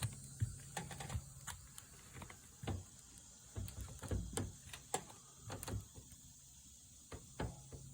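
Irregular small clicks and knocks, about a dozen spread over several seconds, as an object is handled.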